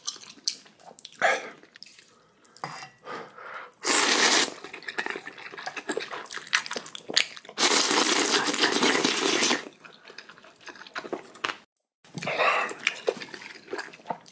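Instant ramen noodles being slurped: a short loud slurp about four seconds in and a longer one lasting about two seconds near the middle, with quieter chewing and mouth sounds between.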